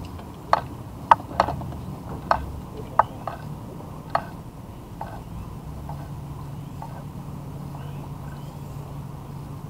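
About seven sharp knocks or clicks at uneven intervals over the first four seconds, then a steady low hum.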